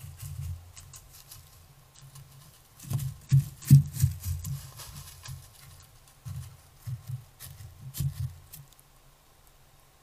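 Irregular rustling and crunching in dry leaf litter with dull low thumps, as white-tailed deer walk across the forest floor. The steps bunch up about three seconds in and again near the end.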